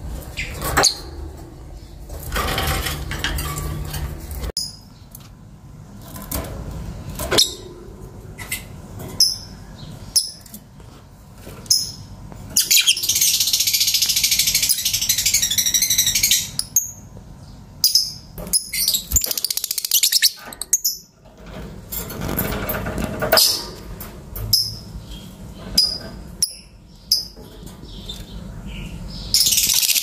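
Lovebirds chirping: short, sharp high chirps scattered throughout, with a run of rapid, shrill chattering lasting about four seconds near the middle and another starting near the end.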